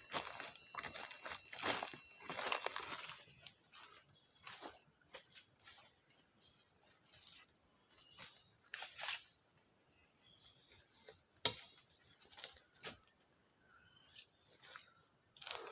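Forest insects droning with a steady high-pitched buzz, with scattered light clicks and knocks. A second, layered insect tone stops about three seconds in.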